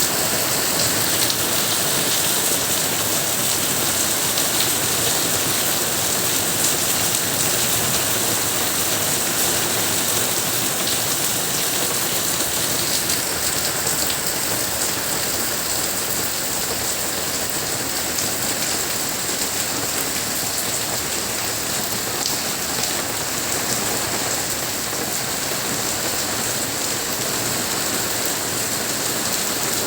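Heavy monsoon rain falling steadily, a dense even hiss of drops on hard surfaces.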